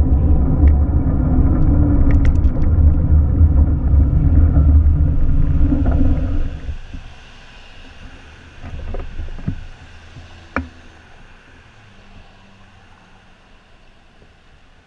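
Low, steady vehicle rumble that drops away sharply about six and a half seconds in. It leaves a quiet background with a few soft knocks and one sharp click.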